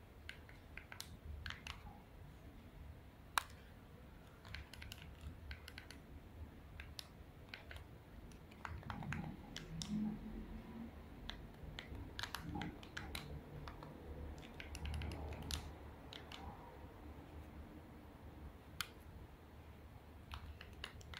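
Faint, irregular small clicks and ticks over a low steady hum, with a slightly louder patch of low sound around the middle.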